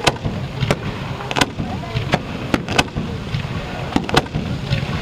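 A fireworks display: aerial shells launching and bursting in a quick, uneven series of sharp bangs, about two a second, over a steady low rumble.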